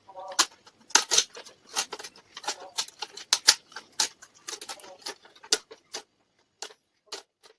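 A quick, irregular run of sharp clicks and taps, several a second, thinning to a few last ticks after about six seconds.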